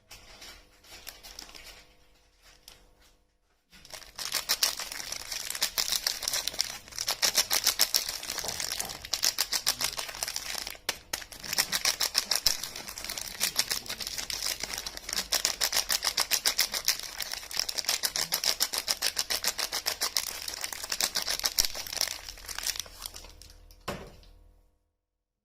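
Crinkly soap packaging being handled and unwrapped: a dense, rapid crackle that starts about four seconds in and stops shortly before the end, with one sharper tap near the end.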